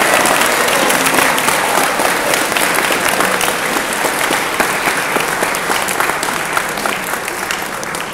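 Audience applauding: dense, continuous clapping that slowly dies down.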